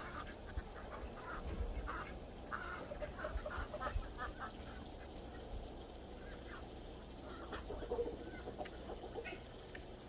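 A flock of ducks quacking and calling in short bursts, busiest from about one and a half to four seconds in, with another cluster of calls near eight seconds.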